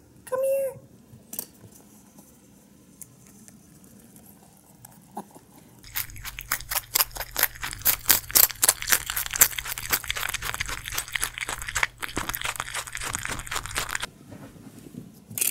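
Pet rabbit chewing a piece of crisp green vegetable close to the microphone: a fast, steady run of crisp crunches that starts about six seconds in and stops shortly before the end.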